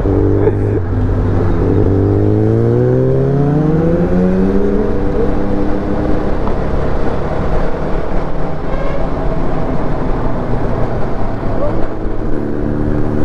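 Motorcycle engine accelerating on the road, its note climbing steadily in pitch over the first few seconds, then lost under wind and road rush at speed. A steady engine note comes back near the end.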